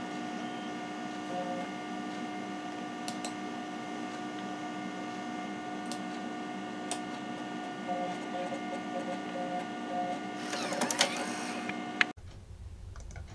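Compact Macintosh SE running, with a steady electrical and fan hum of several fixed pitches and an on-and-off whirring tone from its drives as disks are read. A flurry of clicks comes near the end, and the sound cuts off abruptly about twelve seconds in.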